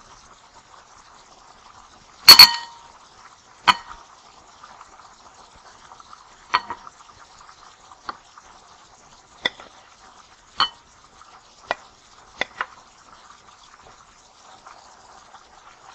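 A serving spoon knocking and scraping against a pot and a ceramic serving bowl as cooked potatoes are scooped across: about ten sharp clinks and taps, the loudest about two seconds in, over a faint steady hiss.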